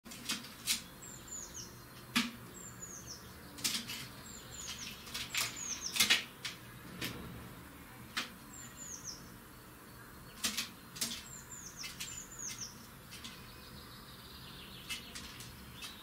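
Common blackbird pecking at mealworms and seed in a glass jar, its beak striking the glass in irregular sharp taps. Between them, short runs of two to four high, falling chirps from a small bird.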